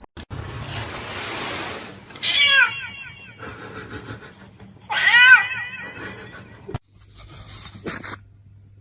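A cat meowing twice, about two seconds in and again about five seconds in, each a short call that rises and falls in pitch. Before the first meow there is a steady hiss lasting about two seconds.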